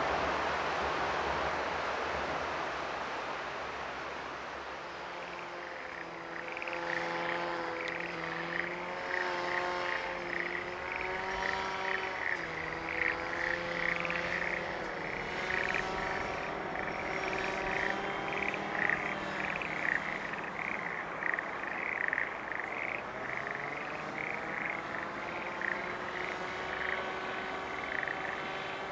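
A chorus of frogs calling, many short, rapidly repeated croaks overlapping, which sets in about six seconds in after a broad rushing noise fades away. A low steady hum that slowly shifts in pitch runs beneath the chorus.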